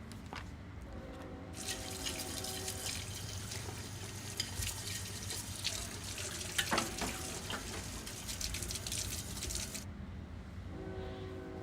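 Running, splashing water, a dense crackly hiss that starts abruptly about a second and a half in and cuts off sharply near the end. A steady low hum lies under it, with faint held low tones at the start and again at the very end.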